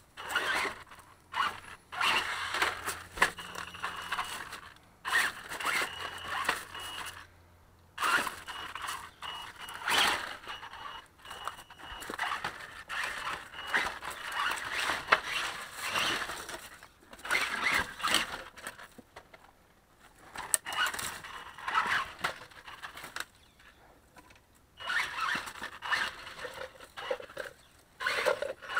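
Axial Yeti RC truck driven in short stop-start throttle bursts: a high electric motor and drivetrain whine with the tyres scrabbling over dry leaves, dirt and wooden boards, every second or two.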